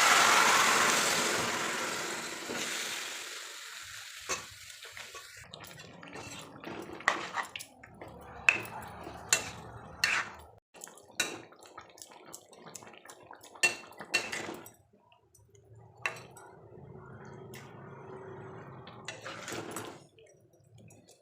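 A rush of water at the start, fading over a few seconds, then scattered clinks and knocks of dishes and utensils being handled.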